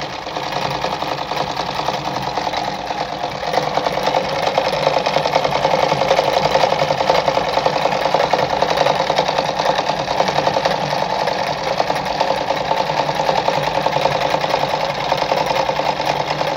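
Mercedes 340FB sewing machine running steadily at speed as it stitches fabric, a rapid even needle rhythm. It picks up speed over the first few seconds.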